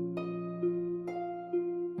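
Background music: a gentle tune of plucked, harp-like notes, about two a second, over held low notes.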